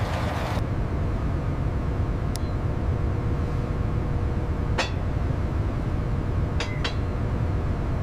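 A steady low rumble with a few short, sharp clinks: one about two seconds in, one near the middle, and a quick pair about two seconds later.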